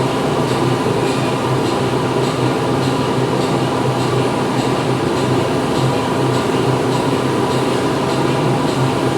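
Factory machinery running steadily inside a factory hall: a continuous loud hum and mechanical noise, with a faint regular ticking about twice a second.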